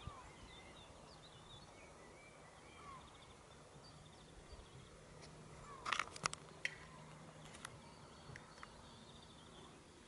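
Faint open-air ambience by still water, with scattered short bird chirps. A quick cluster of sharp clicks stands out about six seconds in, with a couple more single ticks shortly after.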